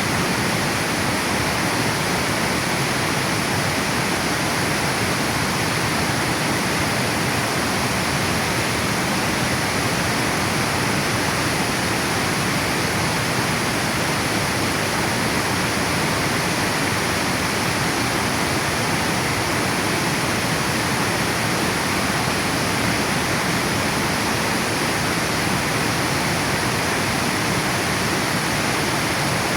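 River water falling over a dam: a steady, unbroken rush of falling water with no change in level.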